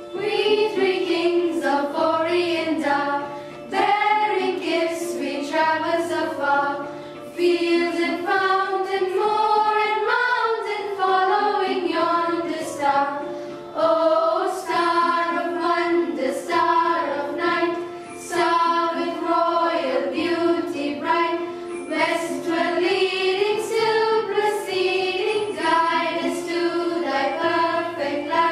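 A choir of teenage girls sings a Christmas carol together, over a soft instrumental backing of held notes and slowly changing low notes.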